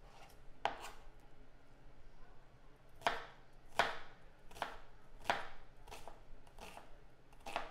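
Kitchen knife dicing an onion on a cutting board: separate knife strikes on the board, one just under a second in, then a steady run of about one every three quarters of a second from about three seconds in.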